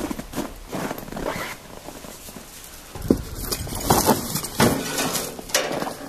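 Footsteps crunching in snow, an uneven series of steps.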